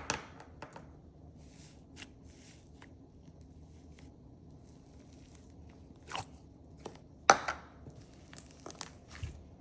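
Scattered clicks and taps from handling slime and its plastic containers, with a louder knock about six seconds in and the loudest about seven seconds in.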